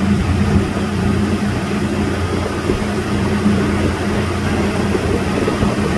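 Motorboat engine running steadily at speed while towing a tube, a constant low hum over an even rushing hiss.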